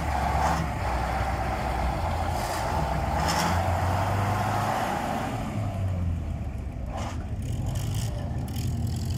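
KrAZ truck's V8 diesel engine running at low revs with a steady, deep beat. A higher hum over it fades out about halfway through.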